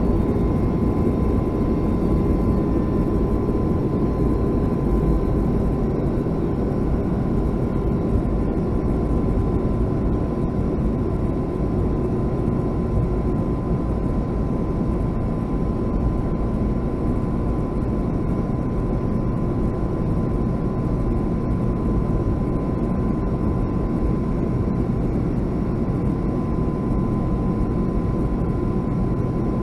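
Cabin noise of a Boeing 757-200 taxiing: a steady low rumble from the jet engines at low taxi power, with a thin steady whine running over it.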